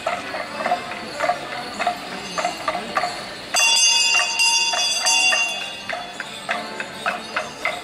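Morris dancers' procession sounds: bells jingling in a steady rhythm, about three strokes a second. From about three and a half seconds in, a loud held chord joins for roughly two and a half seconds, then stops.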